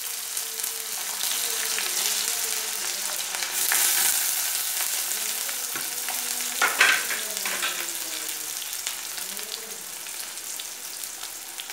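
Sliced onions frying in hot oil in a metal kadai: a steady crackling sizzle, with the spatula stirring and scraping the pan, loudest about seven seconds in.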